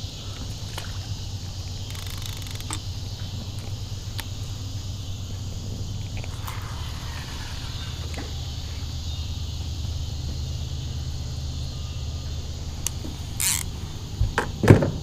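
Summer evening insect chorus of crickets, a steady high-pitched hiss, over a steady low hum. A few sharp knocks near the end as a fishing rod is handled.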